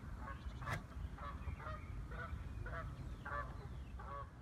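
Geese honking, a string of short calls about two a second, over a low wind rumble on the microphone. A single sharp click comes shortly before the first second.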